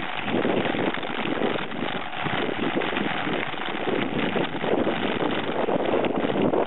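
Mountain bike riding over a dirt track, heard from a camera mounted on the bike: a steady rush of wind on the microphone over the crunch of the tyres on dirt, with frequent small rattles and knocks from the bike jolting over the bumps.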